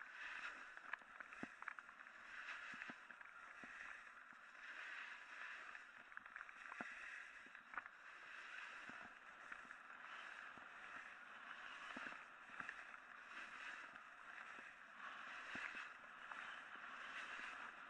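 Edges scraping and hissing over rough, choppy snow while carving turns downhill, swelling and fading with each turn, with scattered sharp ticks from the snow surface.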